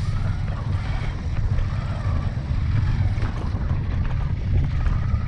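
Steady low wind rumble buffeting the microphone while riding along a road, with the vehicle's running underneath.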